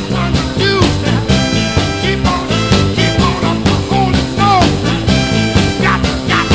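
Uptempo 1960s soul recording: a band with a horn section playing over a driving, steady beat.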